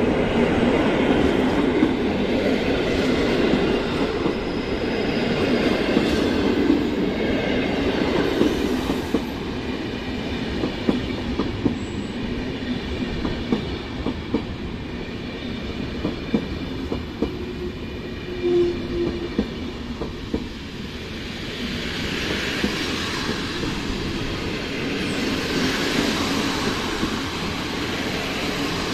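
PKP Intercity passenger coaches rolling past a station platform as the train arrives, a steady rumble with wheels clicking over rail joints. The noise eases somewhat in the middle and swells again near the end.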